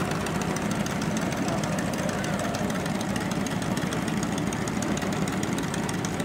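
Miniature Train Company G16 locomotive's gasoline engine idling steadily at an even pace.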